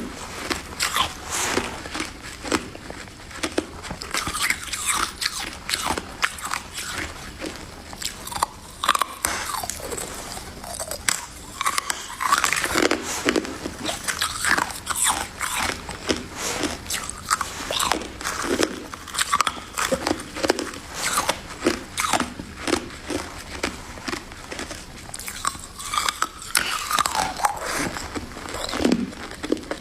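Close-up biting and chewing of crunchy white freezer frost ice, with many dense, irregular crunches.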